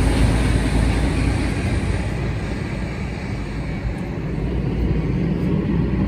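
Passing road traffic, cars and lorries: a low rumble that fades over the first few seconds and swells again near the end, loud enough to drown out the fridge's gas burner.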